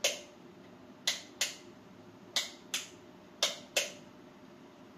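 A light switch clicked off and on again and again, in quick pairs of clicks about a third of a second apart, roughly once a second: a bulb's power is being cycled, the way an IKEA Tradfri ZigBee bulb is put into pairing mode.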